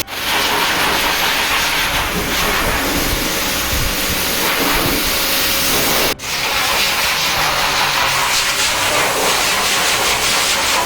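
Loud, steady hiss from dog-grooming equipment, broken by abrupt cuts at the start and about six seconds in.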